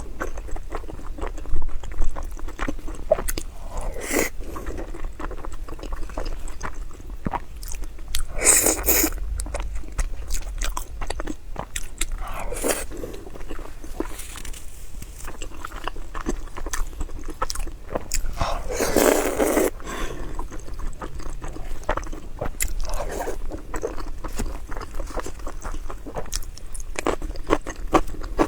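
A person eating close to the microphone: biting and chewing with many small wet mouth clicks, and a few longer, louder mouth sounds now and then.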